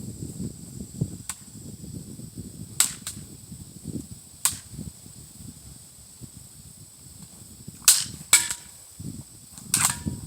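About seven sharp, sudden cracks at irregular intervals, some in close pairs, over a steady low rumble.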